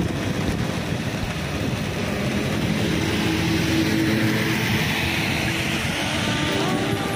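Steady hiss of rain and tyres on a soaked road, swelling toward the middle and later part as a small truck drives past on the wet tarmac.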